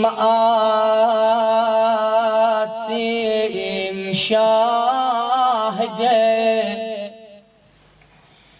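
A man's voice chanting a Shia mourning lament (latmiya) in Arabic, unaccompanied, in long held notes with wavering ornaments. The phrase ends about a second before the end, leaving a short silent pause.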